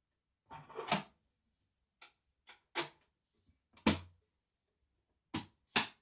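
Aluminium side panel of a 2008 Mac Pro being fitted back onto the case: a short scrape, then about half a dozen sharp metallic clicks and knocks as it seats, the loudest, with a low thud, about four seconds in.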